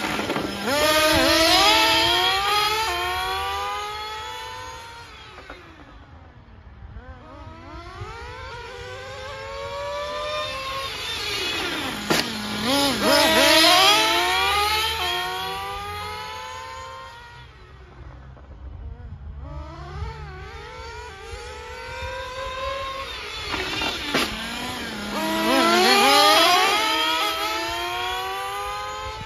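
Two Kyosho 1/8-scale nitro GT2 RC cars with small nitro glow engines running at high revs as they lap, passing close three times about twelve seconds apart. Their whining engine note climbs and drops in pitch as they accelerate and lift off, and fades between laps.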